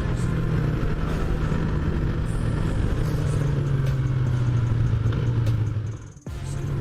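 Yamaha MT-03's parallel-twin engine running steadily while the bike is under way. About six seconds in, all sound drops out suddenly for a fraction of a second, then the engine comes back.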